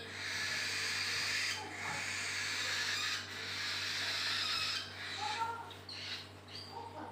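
Hand-fed songbird chick giving raspy, hissing begging calls in long runs of about a second and a half. It changes to a few short, sliding chirps after about five seconds.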